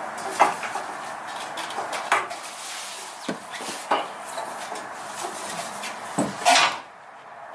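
Scattered metal clinks and knocks of tools and suspension parts being handled during a rear coil-spring install, with the loudest clatter near the end.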